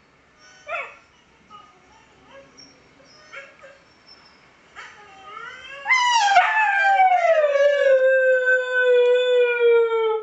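Siberian husky howling: a brief whine about a second in and a few soft short sounds, then about six seconds in one long loud howl that starts high, slides down and then holds its pitch to the end.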